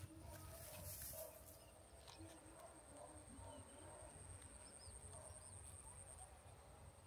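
Near silence: faint outdoor ambience with a steady, thin high-pitched whine and a few faint chirps about five seconds in.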